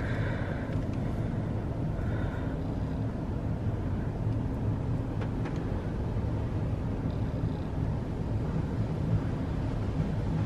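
Steady low drone of a PDQ AccuTrac 360 touchless car wash and the idling car, heard from inside the car's cabin as the wash cycle starts.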